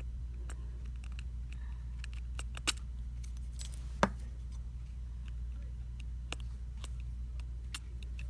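Small sharp clicks and taps of smartphone parts being handled and fitted together during reassembly, scattered irregularly, the two loudest about two and a half and four seconds in, over a steady low hum.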